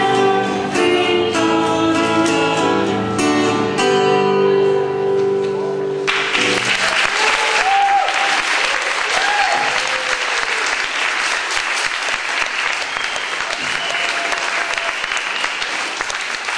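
Two acoustic guitars strumming the closing chords of a song, the last chord ringing out, then an audience bursting into applause with a few whoops and cheers about six seconds in.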